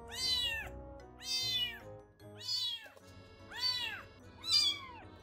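Baby kittens meowing: five high calls, each rising and then falling in pitch, about one a second. Soft background music runs underneath.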